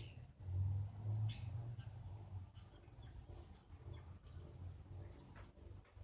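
Short, high chirps from a small animal, repeating about once a second, over a low, uneven rumble.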